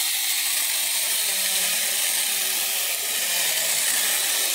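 MIAN MU 48V cordless 6-inch mini chainsaw running steadily at full speed, a high-pitched hiss of the chain as it cuts through a branch.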